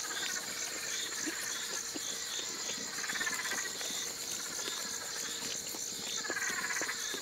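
Night insect chorus: crickets trilling steadily and high, with a lower falling trill that comes and goes every second or two.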